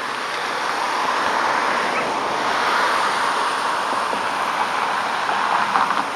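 Sea surf washing onto a sandy, rocky shore: a steady rushing wash that swells and eases.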